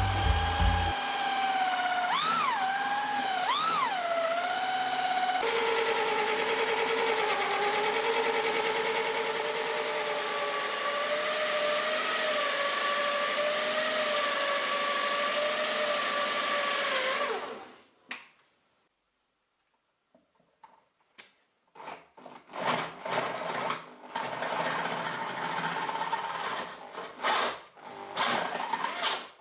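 Hand-held power drill boring into wood with a Forstner bit: a steady motor whine whose pitch dips a few times under load about two to four seconds in, then stops suddenly. After a couple of seconds of quiet, the drill runs a spade bit in short stop-start spurts.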